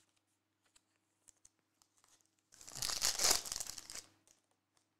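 Foil trading-card pack wrapper crinkling for about a second and a half, after a few faint clicks of cards being handled.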